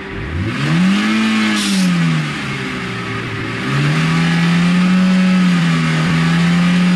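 Maruti Suzuki Eeco's four-cylinder engine revved up and let back down, then revved again about four seconds in and held at a steady higher speed, with a brief hiss near the top of the first rev. This is a rev test of the AC with the compressor engaged; the mechanic's diagnosis is that the AC compressor is slipping.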